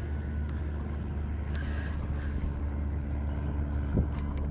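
Boat motor running steadily with an even low hum, and a single dull knock about four seconds in.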